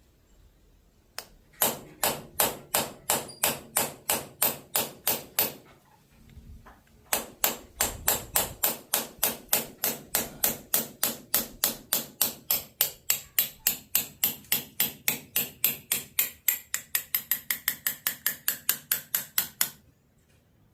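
Rapid, even hammer taps on the headstock shift lever of a 1943 Monarch 18CBB lathe, about four a second, driving to loosen the lever on its shaft. There is one short pause about six seconds in, then a longer run that quickens toward the end, the later strikes ringing more.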